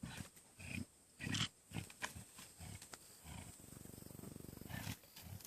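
Lions growling and snarling over an impala kill in short bursts, then a longer, pulsing low growl from about three seconds in, the sound of lions guarding their share of the carcass.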